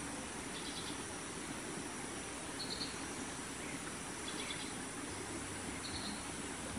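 Outdoor forest ambience: a steady hiss, with four short high chirps about a second and a half to two seconds apart.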